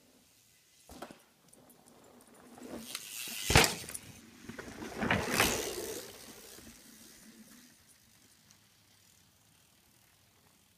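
A mountain bike rolling past close by: tyre noise builds, a sharp thump comes about a third of the way in, a second loud rattling stretch follows a couple of seconds later, and then it fades away.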